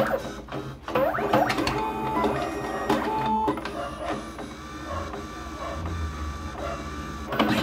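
Smart-31 PVC ID card printer running through a print job: its small motors whir and its mechanism clicks as it feeds a card, with a sharp knock at the very start.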